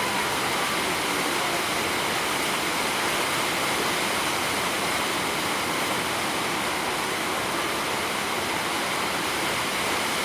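A steady, even rushing noise that holds at one level throughout, with no distinct events.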